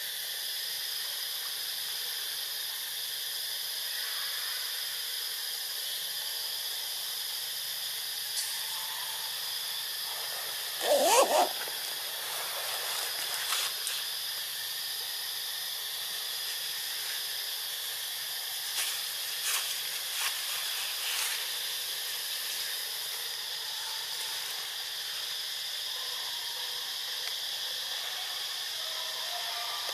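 Steady high hiss of forest ambience. About eleven seconds in comes a short wavering animal call, the loudest sound, followed by a few soft clicks.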